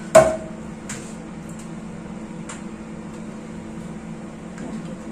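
A hair straightener (flat iron) being worked through a strand of hair: one sharp click with a short ring near the start, then a few fainter clicks, over a steady low hum.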